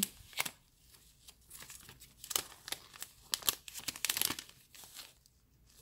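Clear cellophane sleeve crinkling in the hands as it is handled and pulled open, in irregular short crackles, busiest about two to four and a half seconds in.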